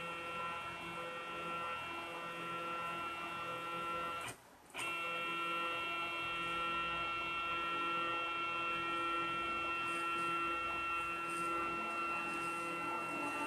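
Small CNC router machine running with a steady electric whine of several held tones over a low hum. It breaks off for about half a second a little after four seconds in, then carries on unchanged.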